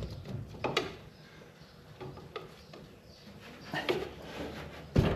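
Scattered clunks and scrapes of tools prying the cylinder head loose on a 1927 Dodge Brothers four-cylinder engine, a knock every second or so with a louder one near the end.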